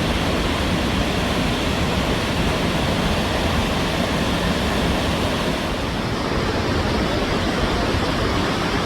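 Steady rushing noise of the Victoria Falls waterfall, its thunder of falling water heard as an even, unbroken hiss and rumble.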